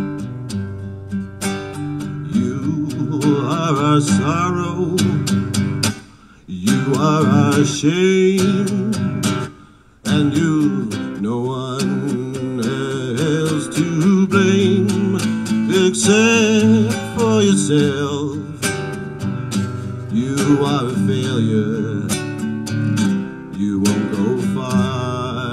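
Nylon-string classical guitar strummed and picked, with a man's singing voice over it through much of the passage. The sound drops out briefly twice, about six and ten seconds in.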